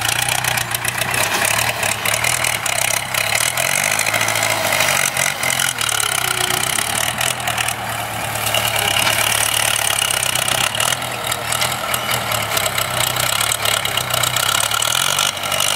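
Ford 6610 tractor's four-cylinder diesel engine running steadily as the cane grab loader is driven up to a cane pile, its pitch shifting slightly now and then. A dense crackle of clicks runs over the engine note.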